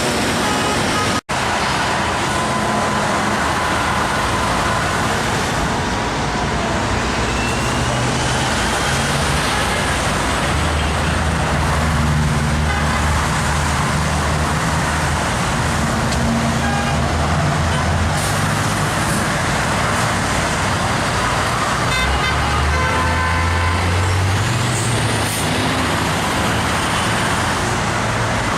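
Heavy road traffic passing beneath an overpass: a steady roar of tyres and engines with trucks among the cars. Car and truck horns honk, with a run of short repeated beeps a little over 20 seconds in. The audio drops out for an instant about a second in.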